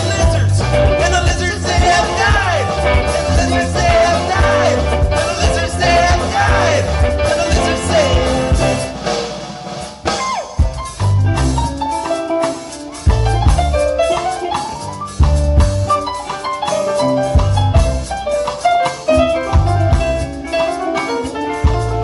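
Live band of electric guitar, electric bass, keyboards and drum kit playing an instrumental passage. About ten seconds in it thins out briefly, then comes back with separate punched hits.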